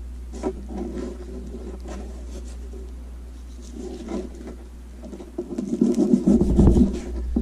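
Knife cutting and scraping the skin back off a seal flipper on paper laid over a countertop: rubbing and rasping with scattered small taps, growing louder and busier near the end. A low steady hum runs underneath.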